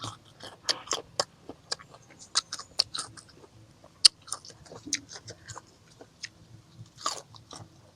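Close-up chewing of crisp raw mango: irregular crunches and wet mouth clicks, several a second.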